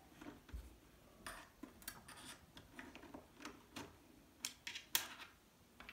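Small clicks and light scrapes from a Torx T10 screwdriver and tweezers working a display-retaining screw out of an iMac's metal frame, with two sharper clicks near the end.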